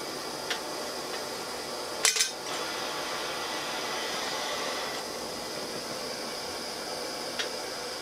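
Annealeez propane-torch brass annealer running: a steady hiss from the torch flame, with one sharp metallic clink about two seconds in as an annealed rifle case drops into the catch tank, and two faint ticks from the feed wheels.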